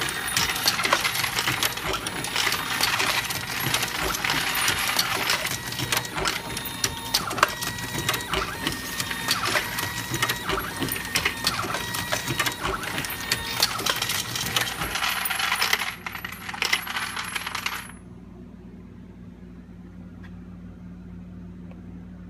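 Dillon Super 1050 progressive reloading press, automated by an AmmoBot, loading 9mm Luger: a dense metallic clatter and clinking of brass cases and the working press. It thins out about 15 seconds in and stops about 18 seconds in, leaving a steady low hum. The machine has halted because it has run out of primers.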